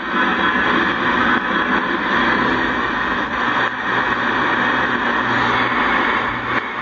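Steady shortwave static and hiss from a KENTEC BCL-1 communications receiver's speaker, a dense rushing noise with no clear programme audio.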